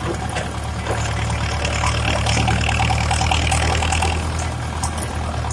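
Steyr 8073 tractor's diesel engine running steadily at a constant speed, with a faint rattle from the machine over it.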